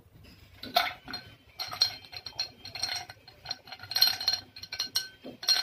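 A tall drinking glass clinking in a rapid run of light taps, starting under a second in, each tap ringing briefly at the same few pitches.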